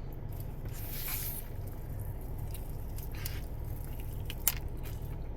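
A person biting into and chewing fried chicken, with soft, faint mouth and squish noises and one sharp click about four and a half seconds in, over a steady low hum.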